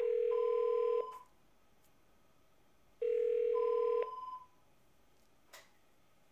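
Ringback tone through an LG-iPECS LDP-9008 desk phone's loudspeaker as it calls another extension: a steady tone about a second long, repeated three seconds later. A faint click near the end.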